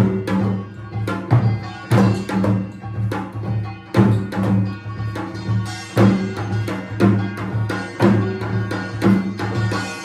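Korean pungmul folk percussion music: drum strikes land a strong beat about once a second over steady held tones.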